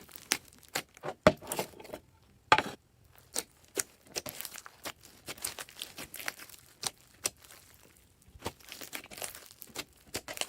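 Slime being squeezed and stretched by hand, making irregular sticky clicks and crackles.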